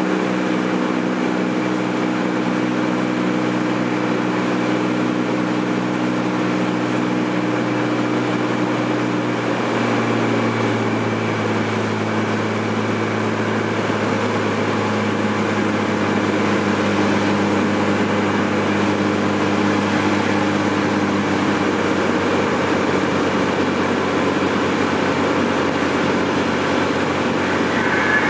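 Cessna 206's six-cylinder piston engine and propeller running steadily on final approach, heard from inside the cabin with airflow noise; the engine note shifts slightly about ten seconds in.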